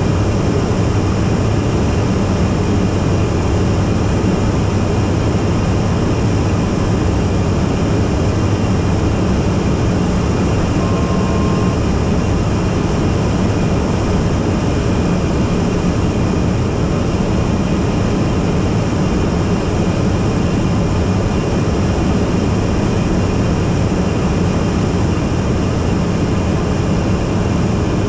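Robin single-engine light aircraft's piston engine and propeller running steadily in flight, heard inside the cockpit as a loud, even drone with cabin wind noise. A short faint tone sounds once about eleven seconds in.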